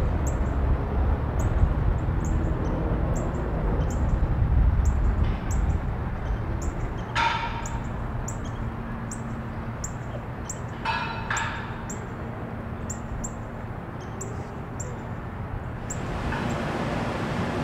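Birds calling: a small bird gives short high chirps about twice a second, and two louder, harsher calls come near the middle. A low rumble runs underneath, strongest in the first few seconds.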